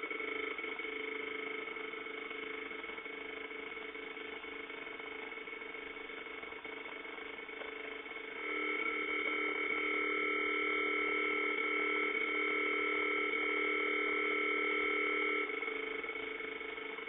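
A REM pod's electronic alarm sounding a steady multi-pitch tone, like a dial tone. It gets louder about halfway through, holds for several seconds, then drops back, with a few faint clicks along the way.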